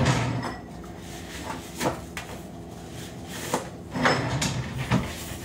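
Kitchen drawers or cupboard doors being opened and shut: a handful of separate knocks and clunks.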